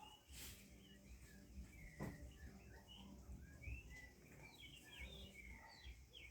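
Faint chirping of birds, many short, quick calls that grow busier in the second half, with a soft knock about two seconds in.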